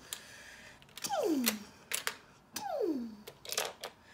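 A child voicing toy blaster shots: two drawn-out falling "piu" sounds about a second and a half apart. Between them come sharp clicks of plastic Lego minifigures and pieces being handled.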